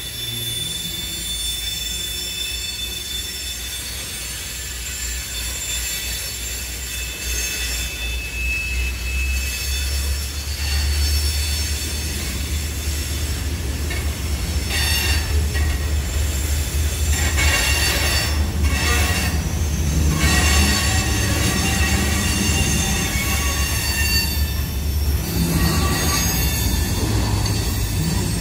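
Freight train cars rolling past close by: a steady low rumble of wheels on rail with high-pitched wheel squeal, several squealing tones held over it. The rumble grows louder after about ten seconds.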